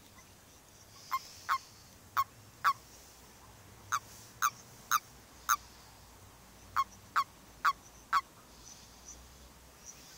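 Common toads in a mating ball giving short, sharp croaks, twelve in all: two pairs, then two quick runs of four at about two a second. Such croaks are typical of the release call a male toad gives when another male clasps him.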